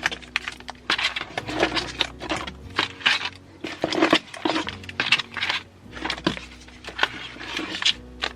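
Groceries being handled and put away: an irregular run of knocks, clinks and packaging rustles, with quiet background music under it.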